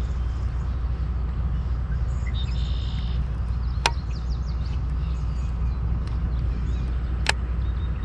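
Steady low rumble of wind on the microphone, with birds chirping briefly and two sharp clicks about three and a half seconds apart.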